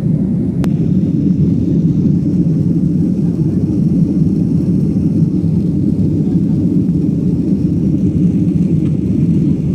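Lion Air jet airliner on takeoff and climb: a steady, loud low rumble of engines and rushing air that holds level without rising or falling.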